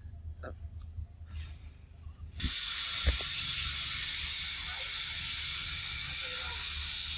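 A steady high hiss starts abruptly about two and a half seconds in and holds on, with a single low thump just after it begins.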